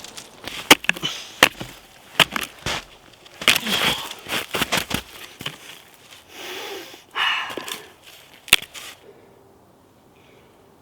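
Dry wood being snapped and broken: a run of sharp cracks with rustling and crunching in between, and a last loud snap near the end.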